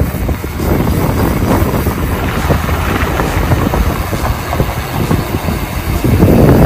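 Wind buffeting the microphone and mountain-bike tyres rumbling on the road while riding along at speed. The rush gets louder about six seconds in.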